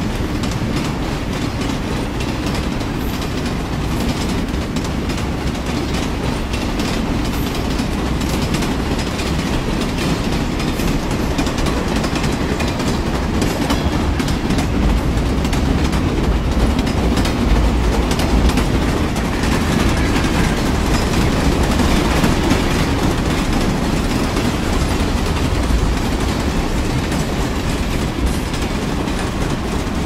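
Train running steadily along the track, its wheels clicking over the rail joints against a continuous rumble.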